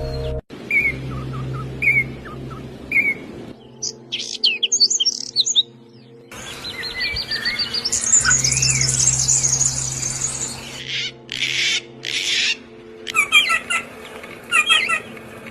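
Small birds chirping and calling: short repeated chirps, high thin notes and a rapid trill. The background changes abruptly several times as different recordings are spliced together, with a steady low hum under some of them.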